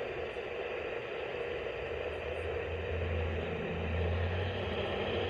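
Steady static hiss from a radio receiver, with a low hum that grows stronger about halfway through.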